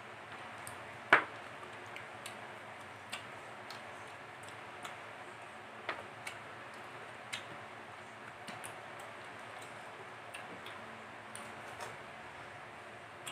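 Eating sounds: scattered small clicks and smacks from chewing and from hands picking rice and food off a metal tray, about one a second at irregular intervals, with one sharp click about a second in, over a steady faint hiss.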